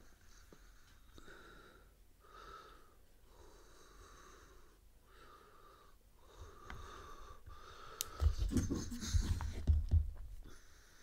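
A person breathing audibly close to the microphone, a wheezy breath about once a second. About eight seconds in comes a louder cluster of low thumps and sharp clicks.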